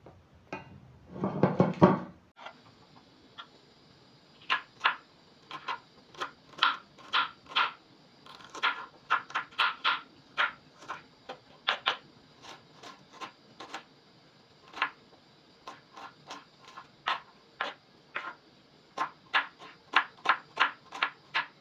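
Kitchen knife chopping red onions on a wooden cutting board: sharp knocks of the blade striking the board at an uneven pace, about one to three a second. About a second in there is one brief loud clatter before the chopping starts.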